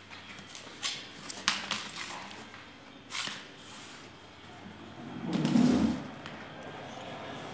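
Handling noises of a sheet of stamp paper on a table: a few short rustles and taps in the first three seconds or so, then a louder, longer muffled rustle about five and a half seconds in.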